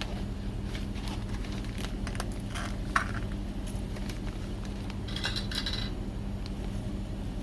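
Tableware clinking during a meal: scattered light taps, a sharp clink about three seconds in and a brief clatter around five seconds, over a steady low hum.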